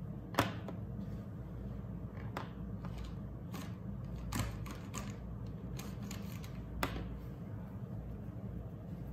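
Plastic Touch Mgoo dual-tip alcohol markers clicking and tapping as they are picked up, handled and set down on a desk: about half a dozen scattered light clicks, the sharpest just under a second in and another near the end. A steady low hum runs underneath.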